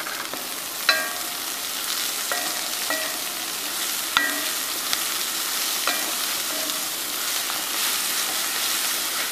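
Chopped red amaranth leaves (cheera) sizzling in hot oil with sautéed onions in a kadai, stirred with a spatula that knocks against the pan several times with a short ringing clink.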